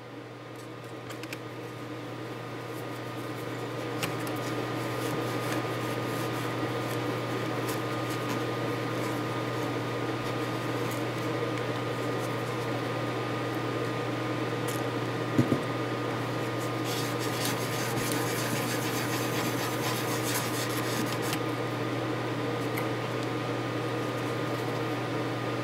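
A steady machine hum, a constant low drone with a few faint steady whine tones, like a fan or motor running. It swells over the first few seconds and then holds level, with a single sharp click about fifteen seconds in.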